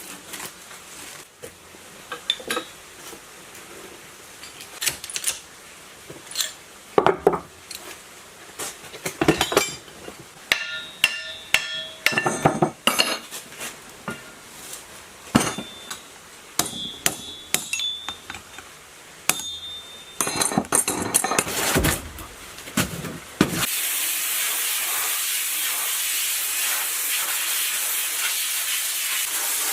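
Hand tools and metal parts of an old three-phase electric motor knocking and clinking during its dismantling: irregular taps, knocks and clinks, some with a short metallic ring. About 23 seconds in these stop and a steady hiss starts and continues.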